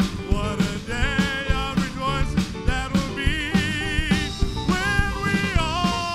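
Church band playing gospel music with a steady beat under a sustained, wavering lead melody.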